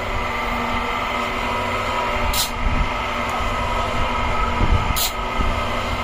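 A small pan-type concrete mixer runs with a steady mechanical drone. Over it, a steel shovel scrapes into a pile of sand and gravel twice, about two and a half seconds apart, with a few dull thumps between the scrapes.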